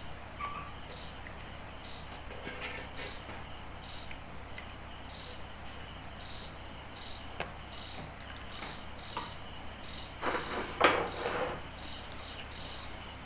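A cricket chirping steadily in evenly repeated chirps, over a low hum, with soft wet rustles and splashes of hands stirring and scooping small silver minnows in water in a plastic tub, the handling loudest about ten to eleven seconds in.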